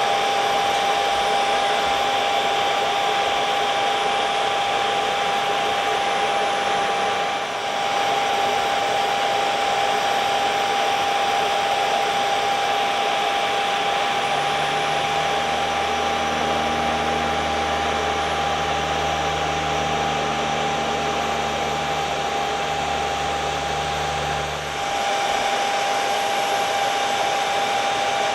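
Aircraft jet engine running steadily: a constant high whine over a broad rush. About halfway through a lower hum joins and cuts off near the end, and the sound drops briefly twice.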